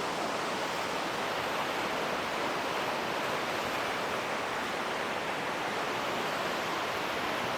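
Steady, even rush of fast-flowing water from a river with a strong current.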